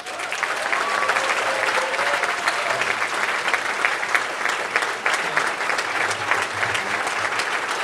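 Audience applauding at the close of a speech: steady, dense clapping with no let-up.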